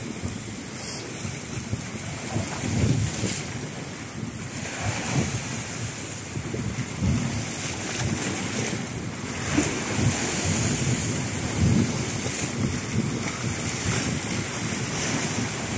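Sea waves washing and surging against the rocks, with wind blowing over the microphone.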